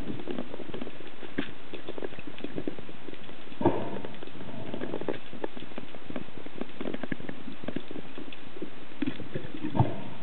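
Underwater handling noise: a steady water hiss with scattered small clicks and knocks as the speared bluefish and spear are handled against the camera, with two louder knocks, one about three and a half seconds in and one near the end.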